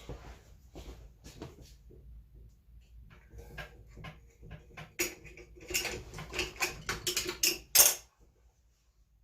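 Handling noise while a sewing machine is oiled: light clicks at first, then a busier run of small metallic clicks and clinks starting about five seconds in, ending in one loud clack.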